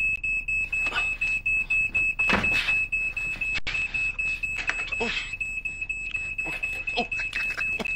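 Smoke alarm beeping fast, about five high-pitched beeps a second, set off by toast burning in a toaster. Short knocks and bits of voice sound over it.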